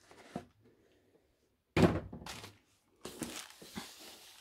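A single loud, dull thunk as an item from a model train set is put down, then a couple of seconds of rustling handling.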